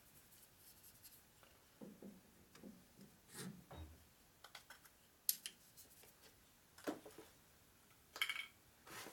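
Faint handling noises at a metal lathe's chuck: scattered light clicks and rubbing as hands work the part and hone, with a sharper click about five seconds in. The lathe is not running.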